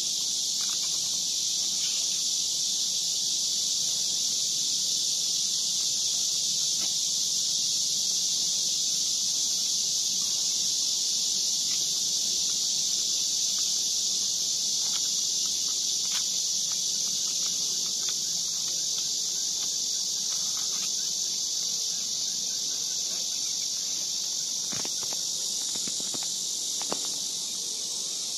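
Steady high-pitched insect chorus: a dense, unbroken buzzing that doesn't let up, with a few faint clicks near the end.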